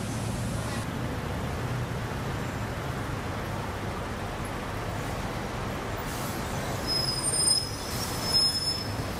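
City buses and traffic running steadily with a low engine hum. Near the end, a bus's brakes give two short, high-pitched squeals as it pulls in to the stop.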